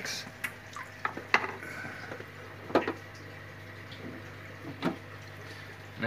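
A few short, sharp water drips and splashes, four or five spaced out over several seconds, over a steady low hum.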